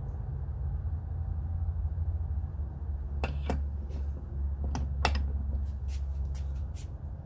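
A series of sharp clicks, about ten, in the second half, from ratchet tools worked on a bolt just torqued to 40, over a steady low hum.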